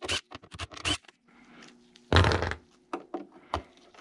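Handling noise from tools and hands working the screwed-on horn plate of a speaker cabinet: a quick run of sharp clicks, then one loud scrape or knock about two seconds in, followed by a few single ticks.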